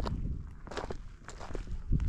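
Footsteps of a person walking over a lakeside trail, a few uneven steps with the loudest right at the end.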